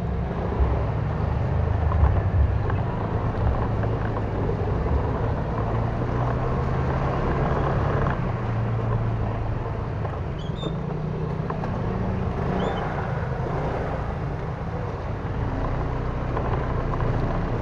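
Honda Click 125 scooter's single-cylinder engine running at low speed. It hums steadily, its pitch rising and falling slightly with the throttle.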